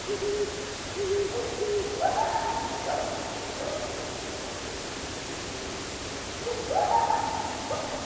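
Owl hooting: a run of short low hoots, then longer, higher hoots about two seconds in and again near the end, over a steady background hiss.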